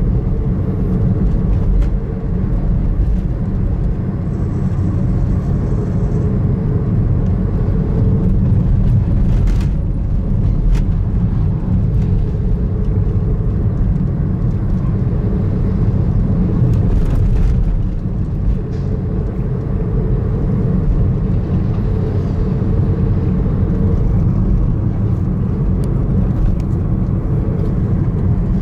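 Steady low rumble of vehicles driving on the road: engine and tyre noise while following close behind a flatbed truck, with a faint wavering hum above the rumble.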